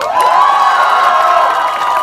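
Crowd cheering loudly, many voices calling out together in one long held cheer that breaks out suddenly and slowly sinks in pitch.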